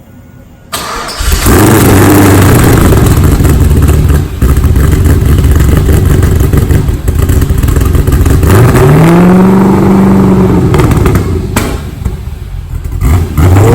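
Swapped LS V8 engine in a Mazda RX-7 FD firing up about a second in on a cold start and running loudly. It is revved once in the middle, rising and falling in pitch, and blipped again near the end.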